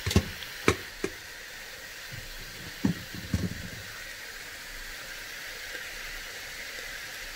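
Sliced peppers and onions sizzling in a stainless steel pot, a steady hiss, with a few sharp clinks of cookware: three in the first second and a couple more about three seconds in.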